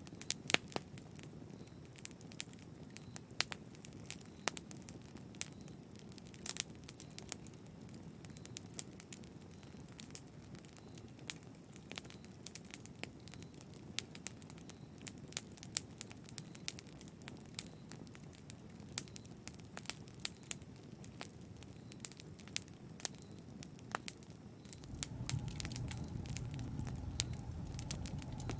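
Wood fire crackling in a fireplace: frequent sharp pops and snaps of varying loudness over a soft low rumble of flames. About 25 seconds in, a louder low rumble of burning comes in and continues.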